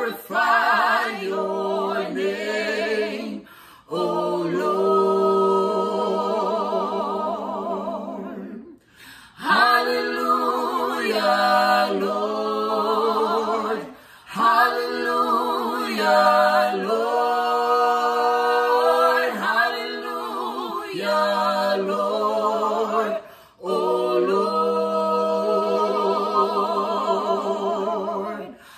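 Three voices, two women and a man, singing an a cappella gospel praise song in close harmony. They hold long, sustained chords and break off briefly for breath every several seconds.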